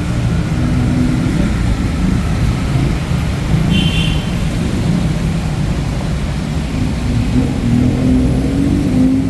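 City road traffic: car engines running close by, with one engine revving up, its pitch rising over the last couple of seconds. A brief high-pitched chirp sounds about four seconds in.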